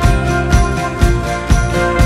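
Background music with jingle bells and a steady beat, about two beats a second.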